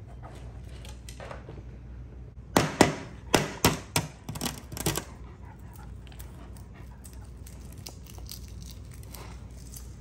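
Hard-boiled eggshells being cracked and peeled by hand: a quick run of sharp crackles starting about two and a half seconds in and lasting a couple of seconds, with quieter shell crinkling around it.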